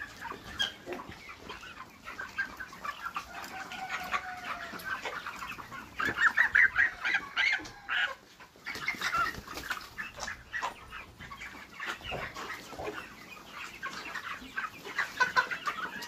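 A flock of broiler chickens clucking and peeping, many short calls overlapping, loudest about six to eight seconds in. The birds have a respiratory illness that the owner says can be heard in their throats.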